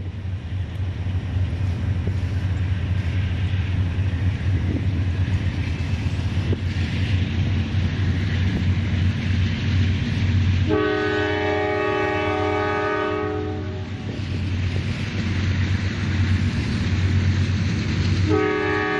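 Diesel freight locomotive's multi-chime air horn sounding one long blast of about three seconds, roughly eleven seconds in, then starting another near the end, over a steady low diesel rumble.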